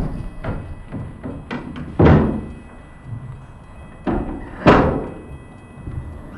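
A series of heavy thuds and knocks, about six at irregular intervals, the loudest about two seconds in and just under five seconds in, each with a short ringing tail.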